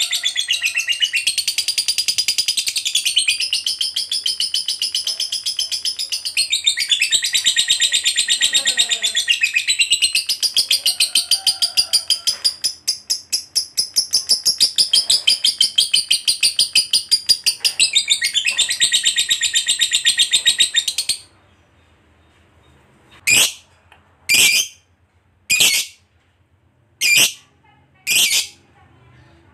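Lovebird doing its long 'ngekek' chatter: a very rapid, high, unbroken trill that goes on for about twenty seconds, rising and falling slightly in pitch. It then stops abruptly and gives a string of short, sharp single calls about a second apart.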